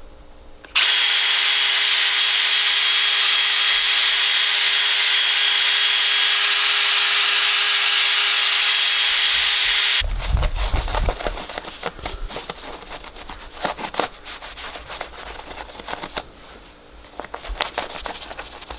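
Cordless drill spinning a foam buffing pad against a jet ski's hull, running steadily at one speed with a high whine, and stopping abruptly about ten seconds in. After that a microfiber towel rubs and wipes the polished panel in uneven strokes, with some handling bumps.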